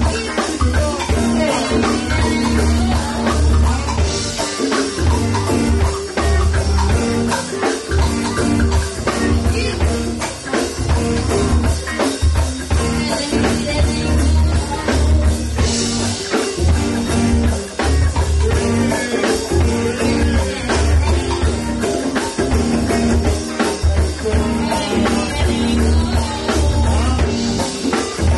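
Live band music: drum kit and guitar over a strong, pulsing low bass line.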